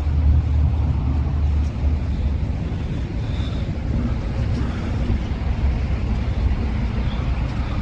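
Steady low rumble of vehicle engines, with some wind on the microphone.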